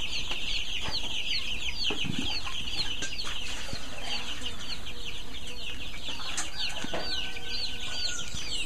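A flock of young chickens peeping: a steady chorus of high, short peeps repeating several times a second.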